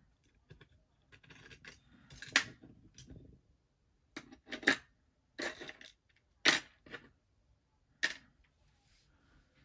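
Small metal screws and a clear plastic lens cover clicking and clattering as they are taken off an LED light panel and set down on a workbench. There are about six sharp, irregularly spaced clicks, with quieter rattling between them.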